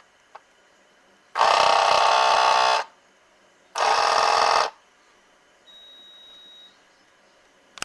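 Abnormal noise from a refrigerator's ice-making compartment: two loud, harsh buzzes, the first about a second and a half long and the second about a second, followed by a faint steady high tone lasting about a second. A few small clicks come at the edges.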